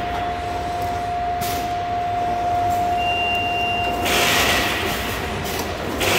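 Bag-making machine with a continuous hole punch running: a steady mechanical din with a constant whine, and rushes of hiss, the longest starting about four seconds in. A brief higher tone sounds about three seconds in.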